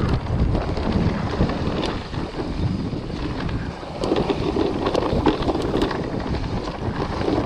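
Mountain bike descending a dirt trail fast: wind rushes loudly over a GoPro's microphone and the tyres rumble, with scattered sharp knocks as the bike runs over bumps.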